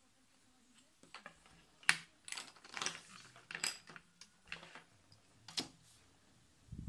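Plastic drawing tools, a set square and a ruler, being handled and laid down on a sheet of paper: a run of light clicks, taps and scrapes, the sharpest about two seconds in.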